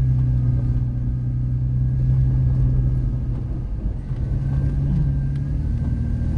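Car engine and tyre rumble heard from inside the cabin while driving off-road on a dirt trail. The steady low engine drone eases off a little under four seconds in, with a brief rise in pitch about a second later.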